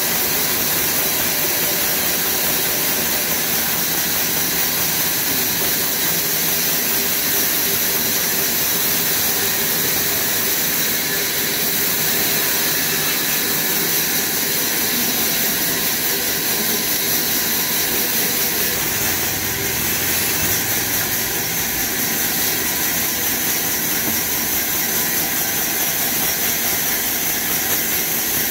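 Horizontal band sawmill running, its blade cutting lengthwise through a mahogany log: a steady, hissing mechanical whine that holds even throughout.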